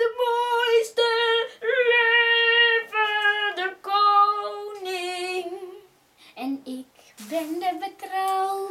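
Children singing a song without accompaniment, holding long notes one after another; the singing breaks off briefly about six seconds in, then resumes.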